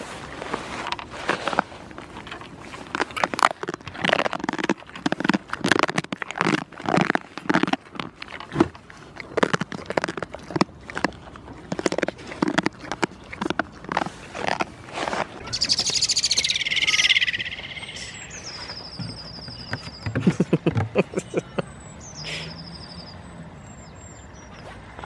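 Goats nibbling and mouthing right at the microphone: an irregular run of close smacks and clicks for about fifteen seconds. Then a songbird sings a short warbling phrase, followed by thin, high whistled notes, with a few more close clicks about twenty seconds in.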